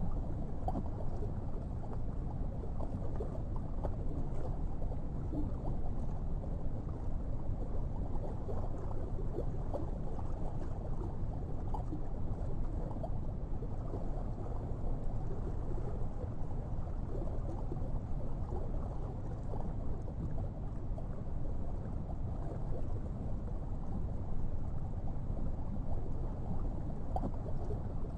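Muffled underwater ambience: a steady low rumble of moving water, with faint scattered crackles.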